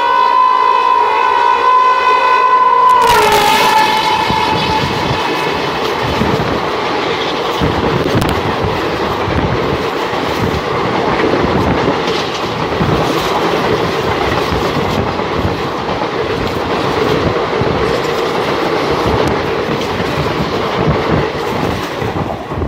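A WAP-7 electric locomotive's horn sounds a sustained chord that drops in pitch about three seconds in as the locomotive passes. An express train then passes at full speed: a continuous rumble with wheels clattering over the rail joints.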